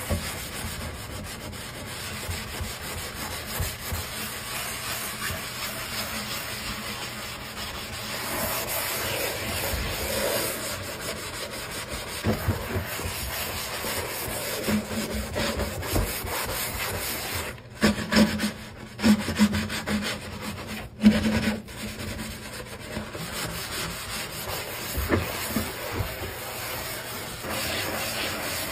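Sponge scrubbing a soapy stainless steel sink: a steady wet rubbing, with a few short squeaks about halfway through.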